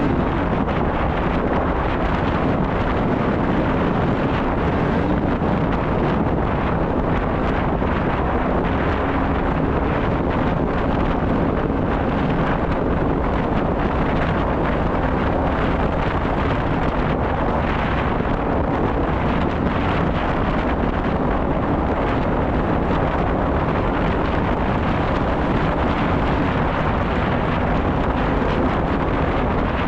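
Snowmobile engine running at a steady speed, heavily masked by wind buffeting the microphone.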